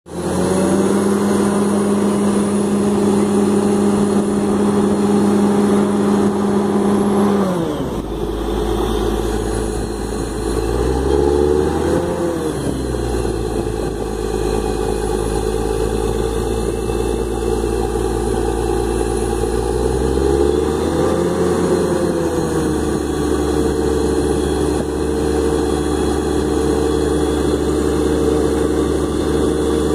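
Truck-mounted borewell drilling rig's engine running steadily under load. Its pitch falls about a quarter of the way in, then rises and falls again twice, near the middle and about two-thirds of the way through.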